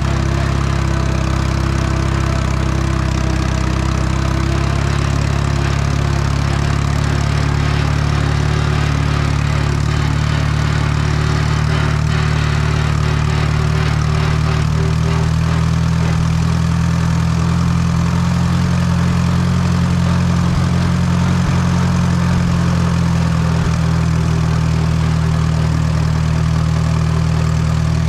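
Allis-Chalmers WD tractor's four-cylinder engine running steadily while pulling a trailer loaded with brush.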